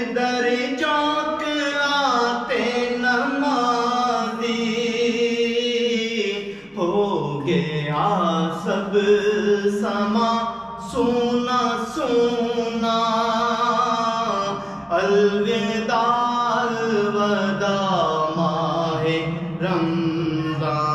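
A man singing a naat solo and unaccompanied. His voice draws out long, ornamented phrases that bend in pitch, with short pauses for breath between them.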